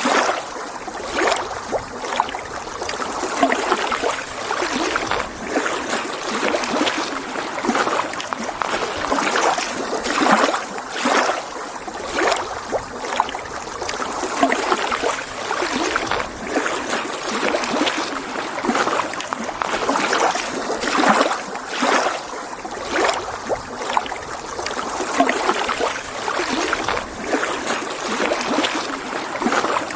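Small lake waves lapping against the shore: a continuous irregular splashing, with many short sloshes.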